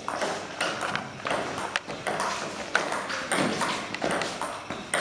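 Table tennis rally: the ball clicking sharply off the paddles and the table, a series of quick irregular hits.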